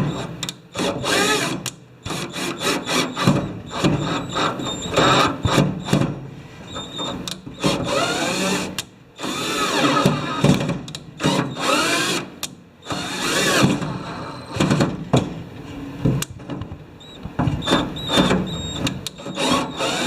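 Power drill driving self-tapping screws into the barbecue's drilled holes to pre-thread them, its motor speeding up and slowing in repeated short bursts with clicks between.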